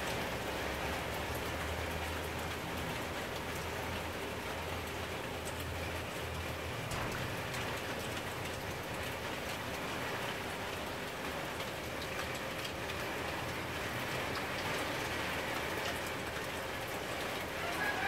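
Water from a lawn sprinkler falling through tree leaves, a steady rain-like hiss.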